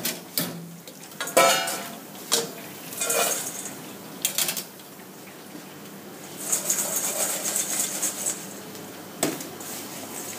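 Steel wire fryer baskets clanking and rattling against the deep fryer as they are lifted out of the oil, with several sharp metallic knocks in the first five seconds, one of them ringing. A few seconds of high hiss follow in the middle, and a single knock comes near the end.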